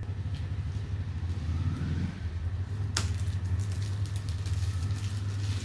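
Steady low hum under light rustling and clicking as smartwatch packaging is handled, with one sharp click about three seconds in as the clear plastic watch case is pulled out.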